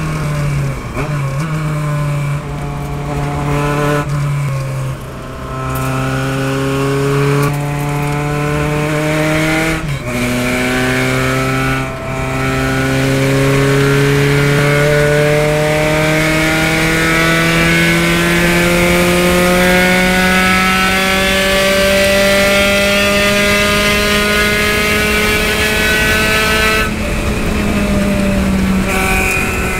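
Spec Racer Ford Gen3's four-cylinder engine at racing speed, heard from the cockpit over wind rush. It lifts off briefly twice in the first ten seconds, then pulls hard down a long straight with its pitch rising slowly to about 6,000 rpm, and eases off near the end.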